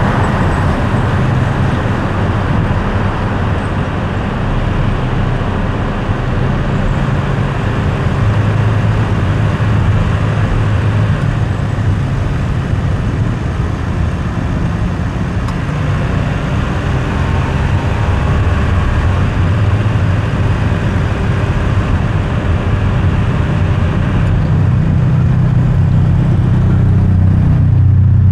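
A car driving along a road: a steady low rumble of engine and tyre noise that continues throughout.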